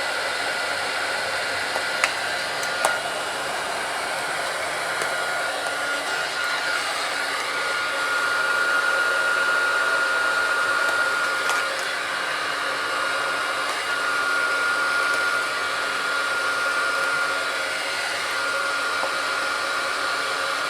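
Heat gun blowing hot air steadily at low heat to soften phone adhesive, with a constant whine over the rush of air. There are a couple of faint clicks early on.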